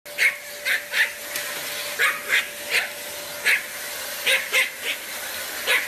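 A Pomeranian yapping, with about a dozen short, sharp yips at uneven intervals, over a steady hiss with a humming tone.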